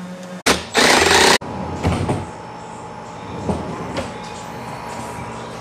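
Pneumatic nail gun firing 1-inch nails into a cabinet drawer front: a sharp shot followed by a loud burst of air hiss that cuts off suddenly. After it come a steady hum and a few light knocks.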